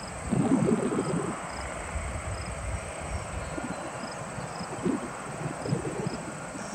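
Insects chirping in short, often paired, high chirps over a steady high-pitched whine, with an irregular low rumble underneath that is strongest in the first second.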